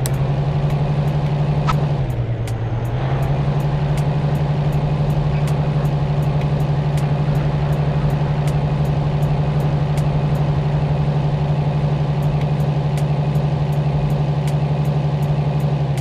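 A steady, loud motor drone, low and even, that dips in pitch briefly about two seconds in, with a faint rapid ticking over it.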